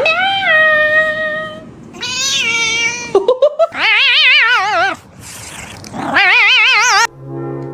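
Domestic cat yowling: four long, drawn-out meows, the last two wavering up and down in pitch.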